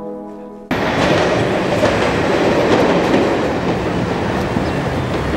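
A passing train on the tracks, running loud and steady, which cuts in abruptly just under a second in as fading music ends.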